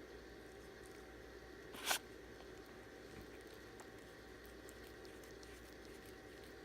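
Pet ferret grooming itself: faint, wet licking and lapping sounds with small ticks. About two seconds in there is one brief, much louder burst of noise.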